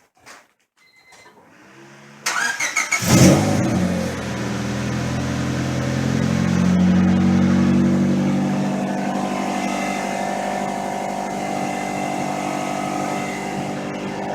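A 2000 Honda Civic EX's 1.6-litre D16Y8 four-cylinder engine being started: the starter cranks for about a second, the engine catches, runs up to a fast idle and then settles to a steady idle.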